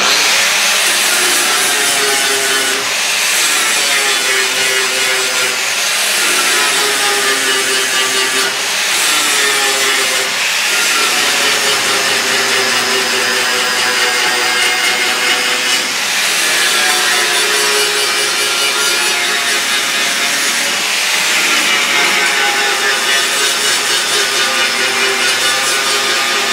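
Electric angle grinder grinding sheet steel, running continuously. Its whine sags as the disc is pressed into the metal and rises again when it is eased off, several times over.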